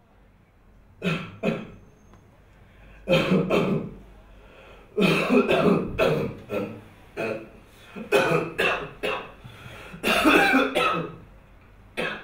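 A man coughing in fits and clearing his throat, in a run of short harsh bursts with brief pauses between them.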